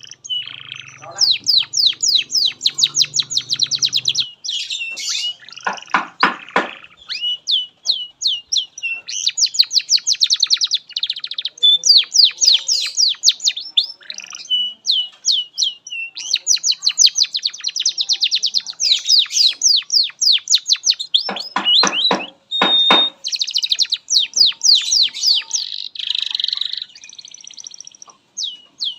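Domestic canary singing a long, continuous song of fast trills and rapidly repeated high notes, broken by short pauses. It adds a couple of brief harsh rolling notes, about six seconds in and again near the three-quarter mark.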